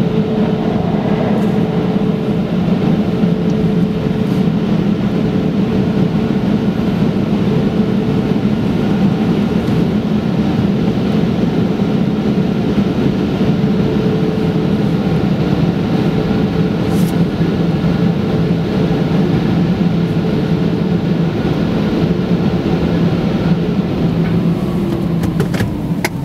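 Automatic car wash machinery heard from inside the car: a steady, loud drone with a hum. Near the end one tone falls as the machinery starts to wind down.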